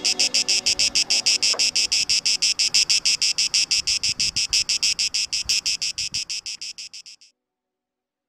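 A cicada singing: a high-pitched run of rapid, evenly spaced pulses, about seven a second, which fades out about seven seconds in.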